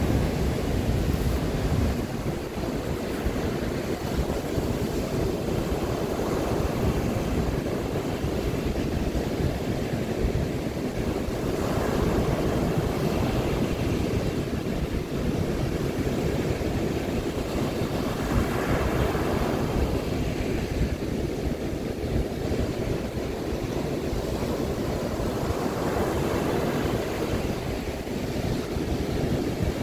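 Baltic Sea surf breaking on a sandy shore: a continuous wash of rough waves that swells as each breaker comes in, with wind buffeting the microphone in a low rumble underneath.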